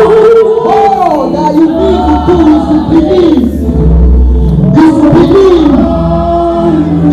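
Gospel worship music: a voice singing a sliding, drawn-out melody over sustained bass notes.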